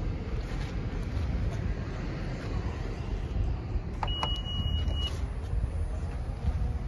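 Honda CR-V power liftgate's set-height button pressed with a click, answered by a single steady high-pitched beep about a second long, confirming the liftgate's open height is stored. A steady low rumble runs underneath.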